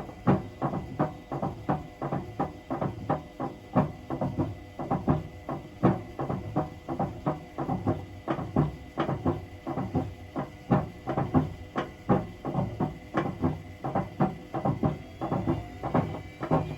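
Hotpoint BHWMXL145 washing machine running its spin programme, its drum knocking and clattering about three or four times a second over a low motor hum: the drum is loose on its snapped drum spider.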